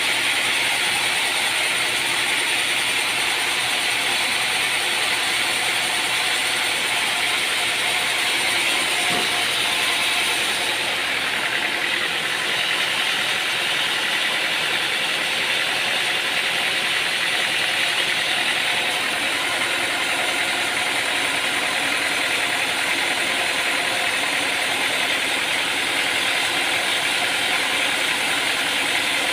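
Sawmill machinery running steadily, an even mechanical whirring and rattle with no pauses.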